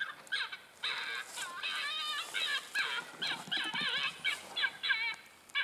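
Electronic predator caller playing a fast series of high, wavering animal distress cries, several each second.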